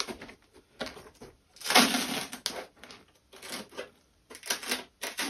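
Dried wallpaper paste crackling and a plastic water ball rustling in irregular bursts as the ball is peeled by hand off the inside of a pasted jute-cord sphere, the cord coming free from the ball. The loudest burst comes about two seconds in.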